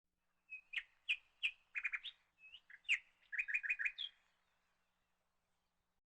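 A songbird chirping: a run of sharp, high chirps with two quick rattling bursts, ending a little after four seconds in.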